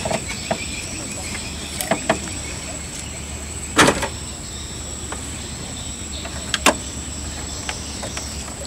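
Several sharp knocks and clatters of bamboo set-line fishing poles handled against a small boat, the loudest a little before four seconds in, over a steady low hum and a high insect trill.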